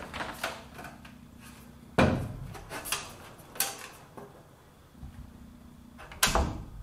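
Sheet-metal fluorescent light fixture knocking and clunking against a wooden roof truss as it is held up and shifted into place. There are a few sharp knocks, about two, three and three and a half seconds in and again near the end, with lighter clicks at the start.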